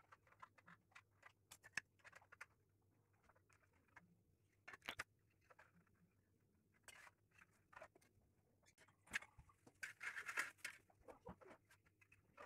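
Faint clicks, taps and scrapes of hard 3D-printed plastic model-aircraft parts being handled and fitted together, with a longer scratchy rub about ten seconds in.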